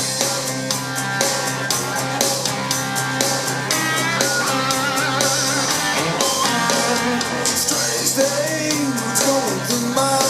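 Rock song with electric guitar, drums, bass and singing, played back from a CD through a Klein & Hummel Telewatt VS 56 valve amplifier and home-built loudspeakers.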